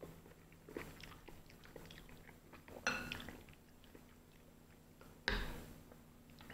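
Close-up eating sounds: soft chewing of macaroni and cheese, with a metal spoon scraping and clinking in a ceramic bowl. A few sharper knocks stand out, the loudest about five seconds in.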